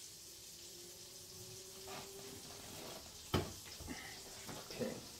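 A skillet sizzling faintly as its butter and olive oil heat, with one sharp knock about three and a half seconds in and a few lighter clatters of kitchenware after it.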